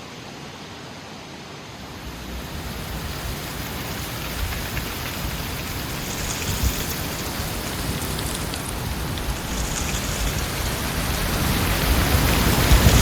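Heavy wind storm: a rushing noise that builds steadily louder from about two seconds in.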